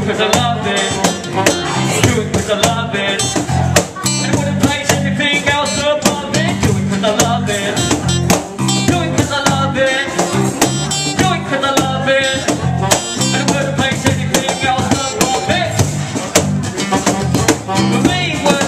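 Live band music: strummed acoustic guitar, bass guitar and a cajon played by hand keep a steady beat, with a voice on a microphone over them.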